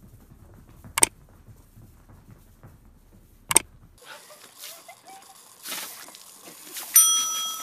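Two sharp clicks a couple of seconds apart, then the steady hiss of a garden-hose water jet spraying, and a bright bell-like ding near the end that rings on and fades.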